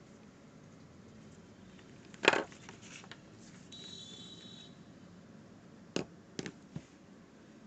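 Unboxing items being handled and set down: one sharp knock about two seconds in, a brief faint squeak a little later, and three lighter clicks near the end.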